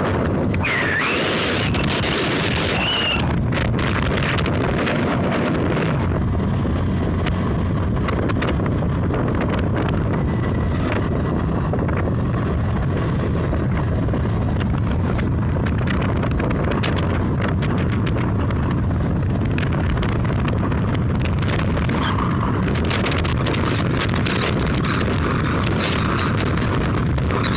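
Wind buffeting the microphone over the steady running of a scooter at road speed.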